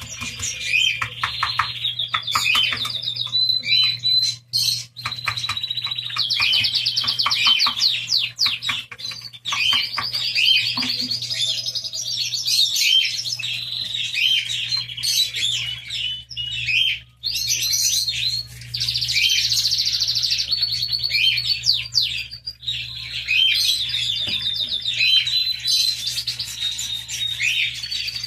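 Many small birds chirping and twittering at once: rapid trills and quick repeated chirps overlap continuously, with a low steady hum underneath.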